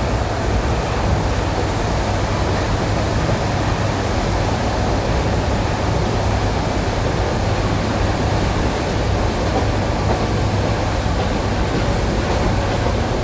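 ED9E electric multiple unit running along jointed track, heard from inside the carriage as a steady, loud low rumble of wheels and running gear with a rushing noise over it.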